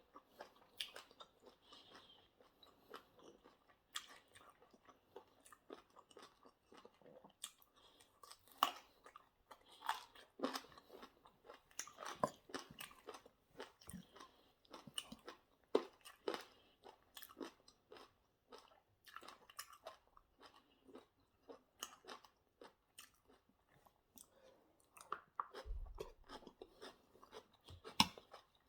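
A person eating chicken wings and salad close to the microphone: irregular crunchy bites and wet chewing, with one dull low thump near the end.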